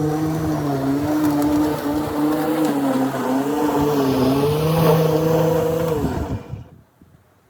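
Lawn mower engine running steadily, its pitch dipping briefly and recovering, then winding down and stopping about six seconds in.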